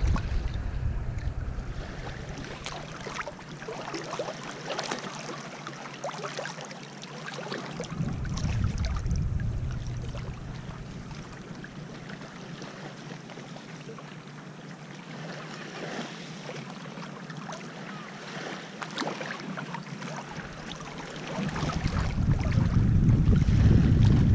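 Small waves lapping and trickling over a pebble lake shore, with wind rumbling on the microphone near the start, briefly about eight seconds in, and louder again near the end.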